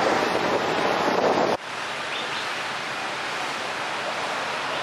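Steady outdoor ambience of wind and street noise at a light-rail stop. It cuts off abruptly about a second and a half in to a quieter steady background, with two faint short high squeaks just after.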